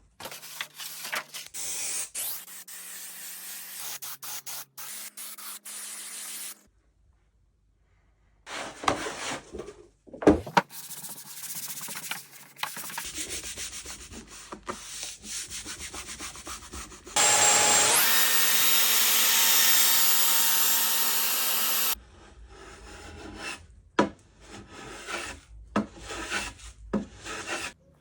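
Wood veneer being rubbed and sanded by hand in a string of short segments that start and stop abruptly, with scattered sharp knocks. From about seventeen seconds in, a louder steady hiss runs for about five seconds.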